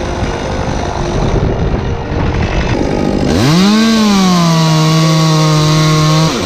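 Chainsaw running: a rough rumble at first, then a bit past three seconds it revs up hard and holds a steady high pitch. Near the end it drops off briefly and revs again.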